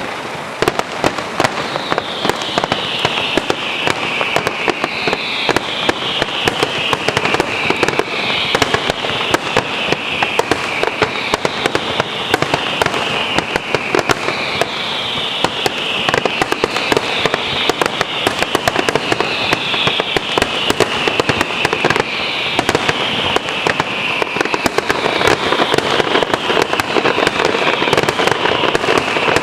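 Fireworks finale barrage: a dense, unbroken crackle of bursts and bangs. Over it, whistles fall in pitch, a new one every couple of seconds.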